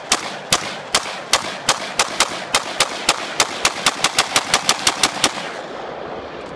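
AR-15 rifle firing a long string of rapid semi-automatic shots, about two a second at first and speeding up to five or six a second, about twenty in all. The shooting stops a little after five seconds in, and a ringing echo fades away.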